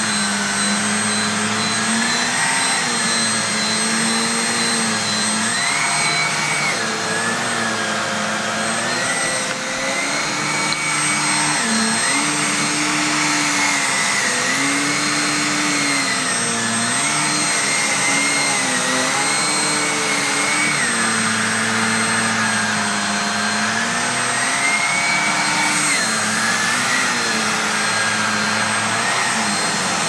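Jimmy JV11 handheld anti-mite vacuum cleaner running continuously over a plush toy. Its motor pitch dips and rises again every couple of seconds as the load on it changes.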